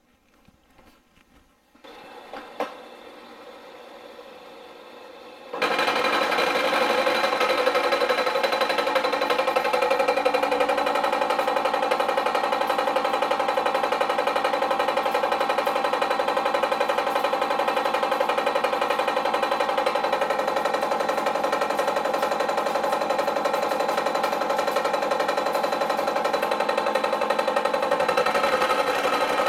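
Bridgeport milling machine face-milling the end of a metal block to finished length. The mill runs up about two seconds in, and a few seconds later the cutter bites into the block, followed by a loud, steady cutting sound with several ringing tones.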